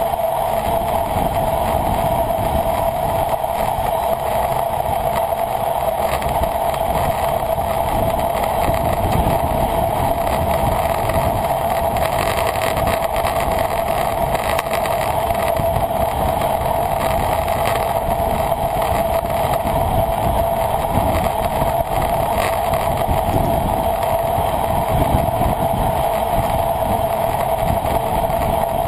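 Steady rush of wind and road noise at a racing bicycle's onboard camera, with a constant droning hum and no breaks.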